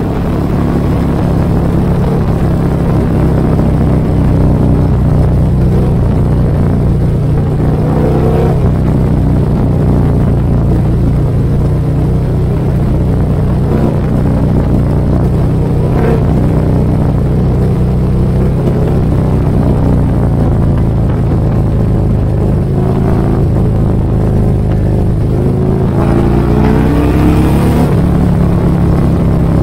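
Harley-Davidson motorcycle's V-twin engine running at road speed, heard from on the bike, with the revs rising several times as it accelerates along the road.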